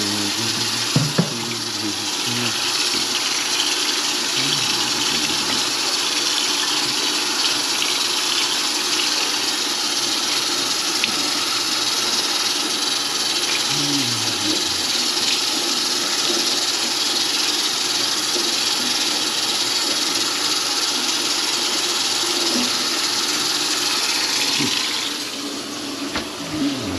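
Steady rush of running water, which stops about 25 seconds in.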